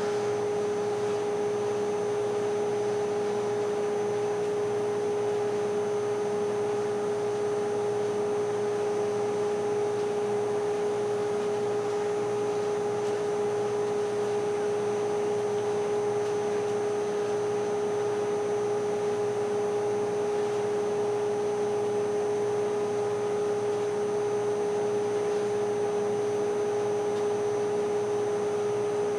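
A steady mechanical hum: one unwavering mid-pitched tone with overtones and a faint high whine, unchanged throughout.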